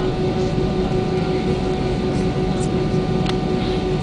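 Airbus A320 cabin noise heard from a window seat: the jet engines' steady hum with a steady whine over it, not rising or falling.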